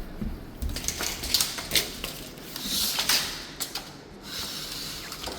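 Tape measure being handled and stretched out: scattered clicks with a scraping hiss about three seconds in.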